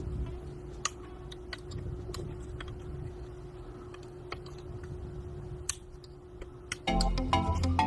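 Light, irregular clicks and taps of small parts being handled while a cassette Walkman is repaired, over a steady hum. Music starts near the end.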